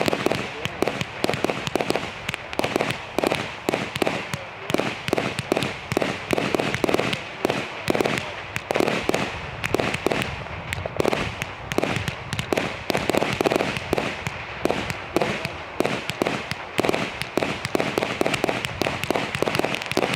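Sovereign Fireworks "Midnight Snow Storm" firework going off in a rapid, continuous run of sharp pops and crackles, several a second.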